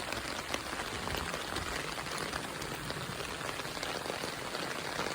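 Steady rain falling on an umbrella held overhead: an even hiss of rain with many small ticks of single drops striking close by.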